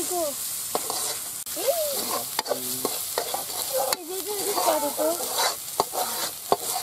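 Vegetables frying in hot oil in a metal karai (wok): a steady sizzle, with the metal spoon scraping and clicking against the pan as it is stirred.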